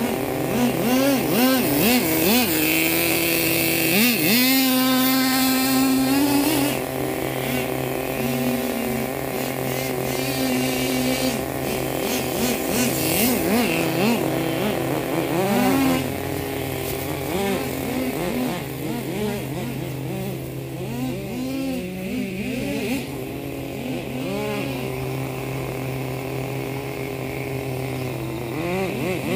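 Small nitro glow engine of an RC monster truck running and being revved over and over, its pitch rising and falling in quick sweeps over a steady drone.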